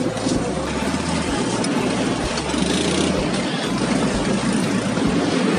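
Steady low rumble of an engine idling nearby.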